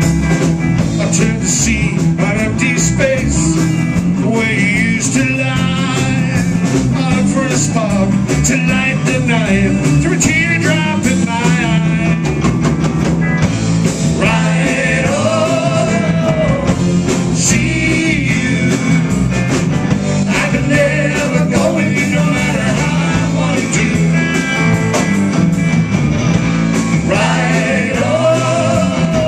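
Live blues band playing an up-tempo number: electric guitars, bass guitar and drum kit, with a lead vocal line over the top.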